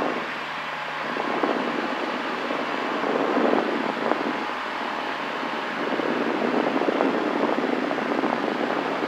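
Cessna 172's piston engine and propeller droning steadily in cruise, heard inside the cabin.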